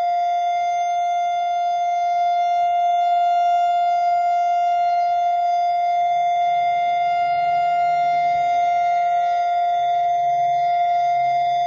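Civil-defence-style siren sounding one steady, unwavering tone, part of a two-minute memorial siren sounded by the hostages' families to mark the anniversary of the 6:29 a.m. warning sirens of 7 October.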